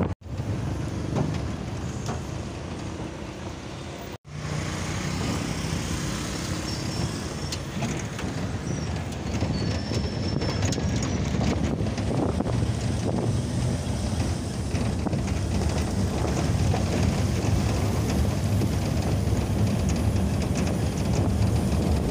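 Steady road and engine noise from a moving Ford Ranger pickup, heard from inside the cabin. The sound cuts out for an instant twice, near the start and about four seconds in.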